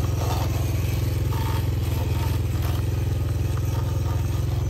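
1000-watt electric youth quad driving through loose sand: a steady low drone with scraping and clatter from the tyres and body.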